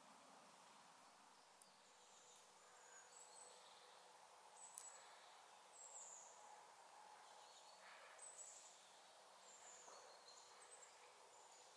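Near silence: quiet woodland ambience with faint, short, high-pitched chirps of small birds scattered through.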